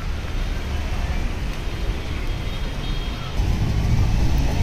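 Road traffic: cars passing with a low, steady rumble, louder from about three and a half seconds in.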